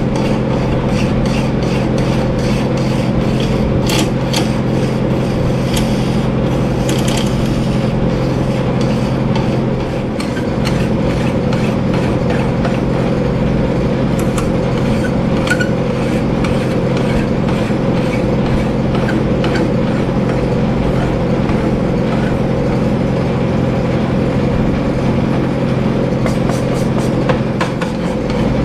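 Atlas lathe running steadily while a flat hand file is stroked across a spinning copper hammer head, scraping in short clusters of strokes now and then.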